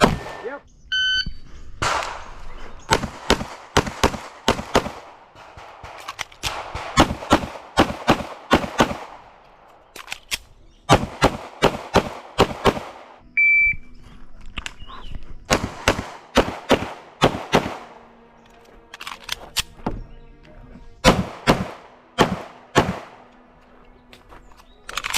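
A shot-timer beep about a second in, then rapid strings of 9mm pistol shots from a CZ P-01. A second timer beep comes about halfway through and is followed by more quick strings of shots.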